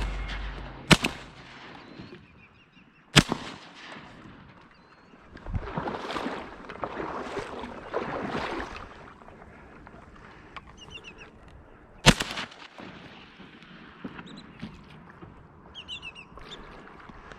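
Ducks calling in short, high chirps here and there, with a few sharp knocks (the loudest about 12 s in) and a stretch of rushing noise in the middle.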